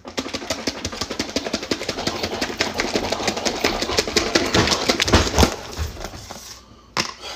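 Chopped salad rattling inside a lidded plastic container as it is shaken hard: a fast, continuous clatter with a few heavier thumps, dying away near the end.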